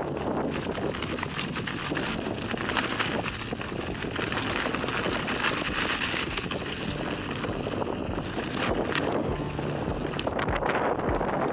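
Wind rushing over the camera microphone as a Commencal enduro mountain bike rolls down a dirt singletrack, with tyre noise from the trail and clicks and rattles from the bike that come thicker near the end.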